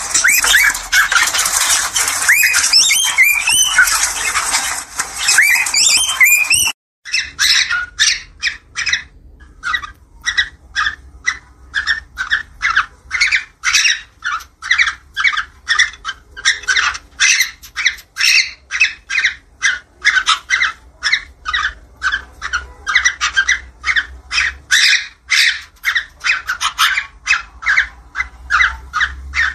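Cockatiel mating calls: a dense chatter of many overlapping calls for about the first seven seconds. After a sudden cut it becomes a steady run of short, sharp calls, about three a second.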